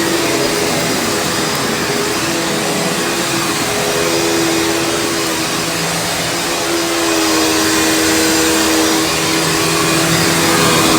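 Panasonic upright vacuum cleaner running on carpet with its brush roll spinning: a steady motor whine over a loud rushing hiss, its pitch shifting slightly as the vacuum is pushed back and forth. The carpet is already fairly clean, so there is little crackle of picked-up debris.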